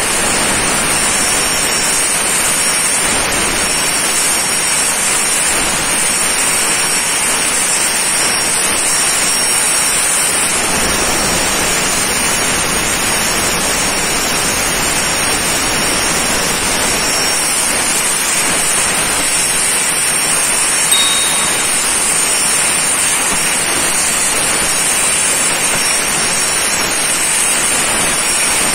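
CNC plasma torch cutting steel plate: a steady, loud hiss of the arc and gas jet, with a faint high whine. There is a single short click about three-quarters of the way through.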